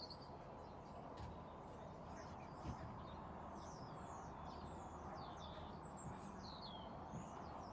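Small birds chirping and singing faintly in many quick, high, sliding notes, over a faint steady low background noise.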